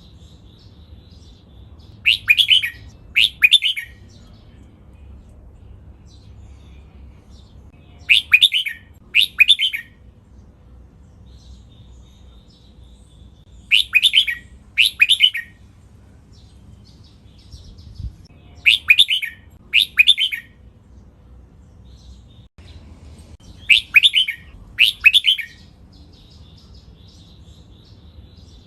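Red-whiskered bulbul singing its song in doubled phrases: two short, loud phrases close together, a pair about every five to six seconds, five pairs in all, with faint soft chirps between them.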